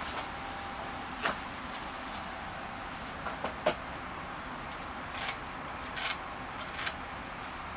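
Lumber being handled on a wooden sawhorse: a handful of short knocks and scrapes of wood on wood as cut timber pieces are set down and shifted, the sharpest knock about three and a half seconds in.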